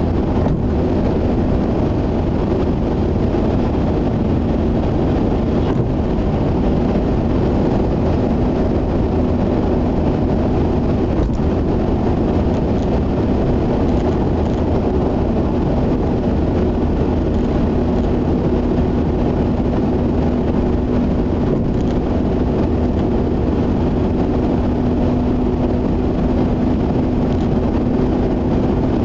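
Steady in-cabin drone of a Mazda RX-8 cruising at expressway speed: tyre and road noise with a constant engine hum, which grows slightly stronger in the second half.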